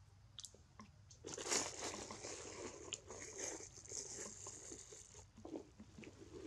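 Crinkling and rustling of a plastic bag being handled, most likely as peanuts are taken out of it. It starts about a second in, runs for about four seconds and stops suddenly, followed by a few faint clicks.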